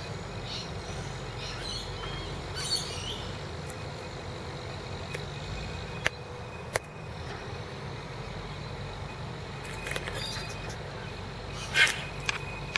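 Side-loader garbage truck's engine running at a distance, a steady low rumble, with a couple of sharp clicks midway and a short loud burst of noise near the end.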